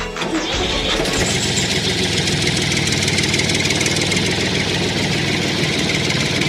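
An engine comes in about a second in and runs steadily, with a rapid, even firing rhythm.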